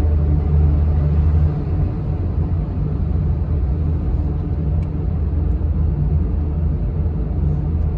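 Steady low rumble of the car's engine and road noise, heard from inside the cabin while driving through a road tunnel with traffic around.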